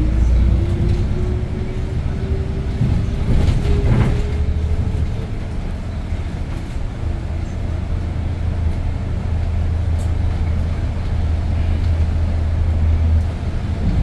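Steady low drone of a 2022 Hyundai New Super Aerocity city bus's C6AF CNG engine and drivetrain, heard from inside the bus while it is under way. Over the first five seconds a thin whine rises slowly in pitch, and there is a single knock about four seconds in.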